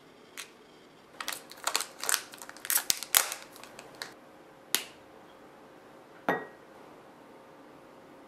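A chocolate bar snapped into pieces by hand: a quick run of sharp snaps and clicks lasting about three seconds. A single sharp knock with a brief ring follows about two seconds later.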